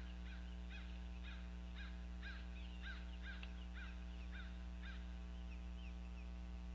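Bird calls: a run of short, high piping notes, about two to three a second, that stop about five seconds in, over a steady electrical hum.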